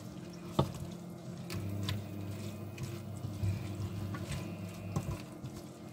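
A spoon stirring chunks of chicken, prawns and Brussels sprouts in a stainless steel pot: wet squishing, with a few light knocks of the spoon against the pot. A steady low hum runs underneath.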